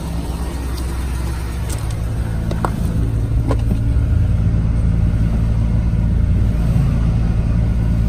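Chevy Silverado 1500 V8 engine idling steadily, heard close by. A few light clicks come in the first half, as the driver's door is opened.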